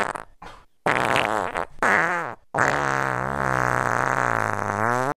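A child making rude bodily noises: two short ones, then one long, low, drawn-out noise of about two and a half seconds whose pitch wavers and rises at the very end.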